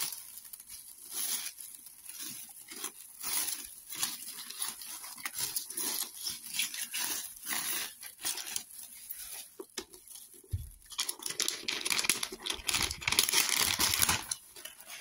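Honeycomb kraft-paper packing wrap being pulled apart and unwrapped by hand: irregular crinkling, rustling and tearing of paper, with a soft bump about ten seconds in and a denser stretch of rustling in the last few seconds.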